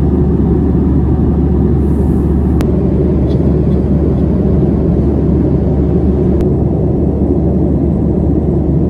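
Steady in-flight cabin noise of a Boeing 737-800 heard from a window seat: a loud, even low rumble, with two faint clicks.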